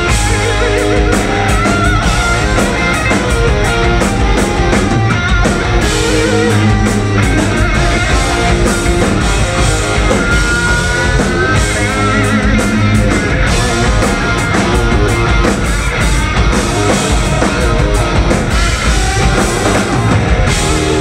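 Live rock band playing an instrumental stretch of the song: distorted electric guitars, bass and a drum kit, loud and unbroken, with no singing. About halfway through, a lead guitar note is held and bent.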